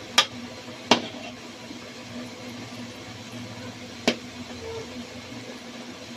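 Gulab jamun balls frying in hot oil in an aluminium kadai, with a steady faint sizzle, as a spatula turns them and knocks sharply against the pan three times: just after the start, about a second in, and about four seconds in.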